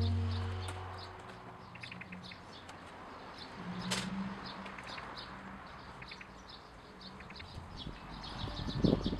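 Small birds chirping in short, repeated calls throughout. A low held note fades out over the first second, and a single sharp click comes about four seconds in.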